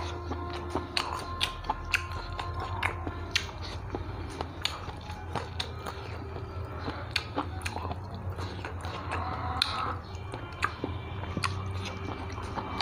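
A man chewing a mouthful of rice and curry close to a clip-on microphone, with frequent short wet clicks and smacks of the mouth, over a steady low hum.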